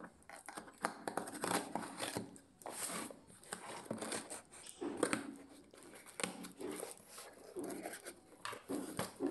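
A small knife slitting packing tape on a cardboard shipping box, with tape tearing and cardboard scraping and rustling in irregular bursts.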